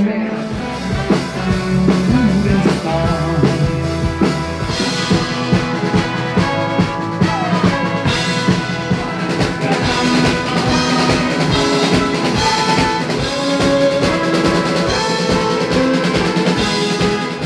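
Live pop-rock band playing, with drum kit, electric guitars, bass guitar and a brass section, at a steady beat.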